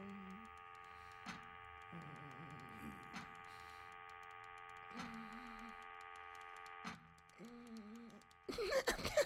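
Machine ambience: a steady hum of several held tones, with a sharp click about every two seconds and short, low warbling tones in between. Near the end a sudden loud burst of chattering, squawking sound takes over.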